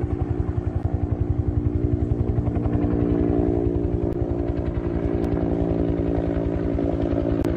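Helicopter flying overhead: the rapid, even beat of its rotor blades over a steady engine tone.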